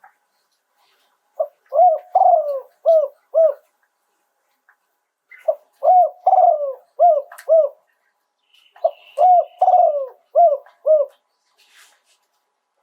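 Spotted dove cooing in three phrases a few seconds apart. Each phrase is a run of several quick arched coos.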